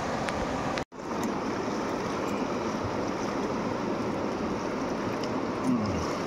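Steady rushing of a fast mountain river's rapids, with a momentary dropout to silence about a second in.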